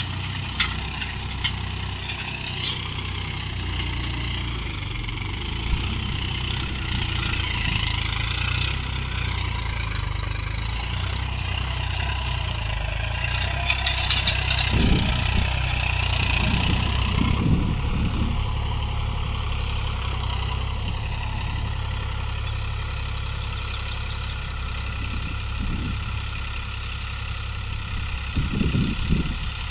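Mahindra Yuvo Tech Plus 415 DI tractor's four-cylinder diesel engine running steadily while pulling a tillage implement through the soil. A few low thuds come about halfway through and near the end.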